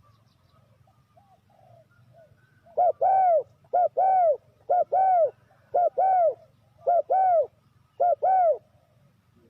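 Spotted dove cooing: six loud two-part coos, each a short note followed by a longer arched note, about one a second, starting around three seconds in, with a few faint softer coos before them.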